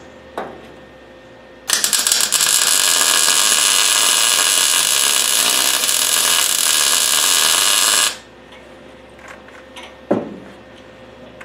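A wire-feed (MIG) welding arc runs steadily for about six seconds as a weld is laid along the rocker panel seam, starting abruptly a couple of seconds in and cutting off sharply. There is a light knock shortly before the weld and another a couple of seconds after it.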